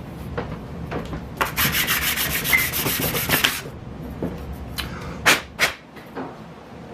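A short plastic pipe ring rubbed by hand on a sheet of 400-grit sandpaper: a dense, scratchy sanding noise for about two seconds. A few sharp knocks follow as the piece is handled.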